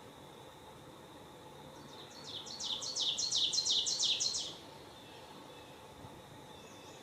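A bird singing a fast run of about a dozen repeated high notes, about five a second, starting about two seconds in and lasting some two and a half seconds, over a faint steady insect drone.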